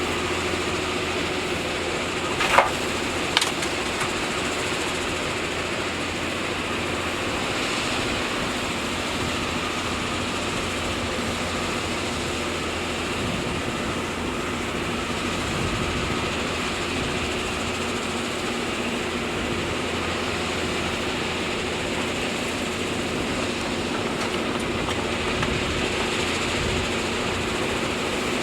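Excavator's diesel engine running steadily, with two sharp knocks about two and a half and three and a half seconds in.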